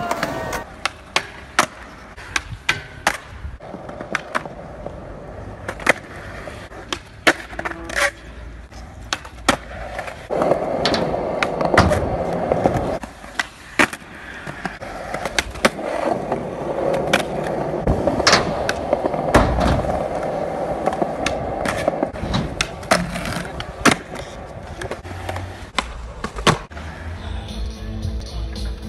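Skateboard on concrete: the wheels rolling, with many sharp pops and clacks as the board's tail snaps and the deck and trucks hit ledges and land. The rolling grows louder from about ten seconds in.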